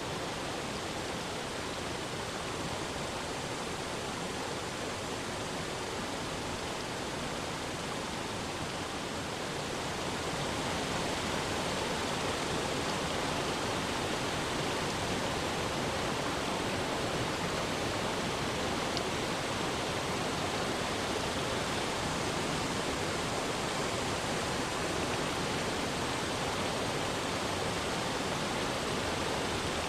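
Steady rush of water falling and cascading over rocks at a multi-tiered waterfall, growing a little louder about ten seconds in.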